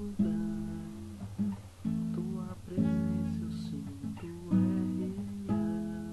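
Instrumental passage of acoustic guitar strumming chords. A new chord starts about once a second and each rings out and fades before the next.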